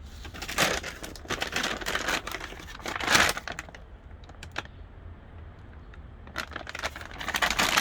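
Irregular rustling and crackling, with a louder burst about three seconds in and another near the end.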